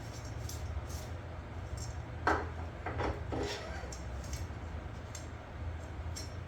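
A few sharp metallic clanks and clinks of mower parts and hand tools being handled, bunched together about two to three seconds in, over a steady low hum.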